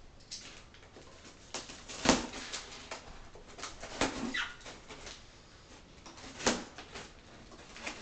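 Knife cutting and prying white polystyrene foam packing inserts inside a cardboard box: irregular squeaks and scrapes of the foam, with a few sharper knocks, the loudest about two seconds in and again about six and a half seconds in.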